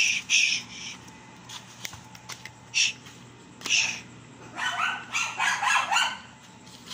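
Dog yapping: a few short, high-pitched barks, then a quick run of yelps near the end.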